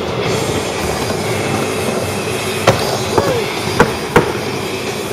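Skateboard wheels rolling across a skate bowl, a steady rumble, with sharp clacks of the board about two and a half seconds in and twice more around four seconds in.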